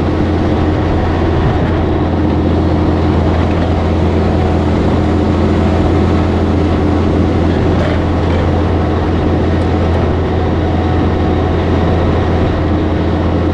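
Peterbilt 362 cabover truck's diesel engine and road noise inside the cab while cruising on the highway: a steady, loud low drone.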